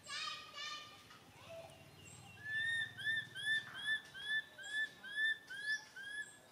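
An animal calling: two loud high cries falling in pitch at the start, then a run of about nine short, arched, whistle-like calls, about two a second.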